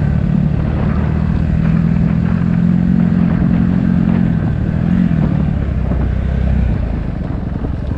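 Dirt bike engine running at a steady pace while riding a gravel track; the engine note drops back about three-quarters of the way through.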